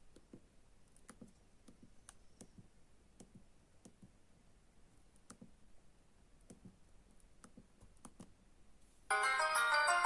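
Faint button clicks on a Samsung SGH-A257 cellphone, irregular, about one or two a second. About nine seconds in, one of the phone's default ringtones starts suddenly and loudly, a quick chiming melody.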